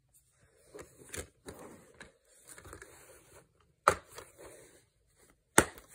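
Plastic DVD case being handled, with rustling and scraping, then snapped shut with a sharp click nearly four seconds in; a second sharp click follows about a second and a half later.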